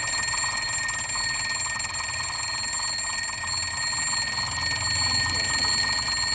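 Casio TQ-362 table alarm clock's electronic alarm going off: a continuous high-pitched buzzing tone with a rapid flutter, cutting off suddenly at the end.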